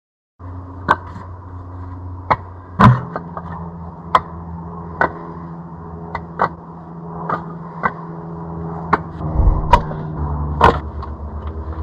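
A tool striking wood in about a dozen sharp, irregularly spaced chopping blows, roughly one a second, over steady background music.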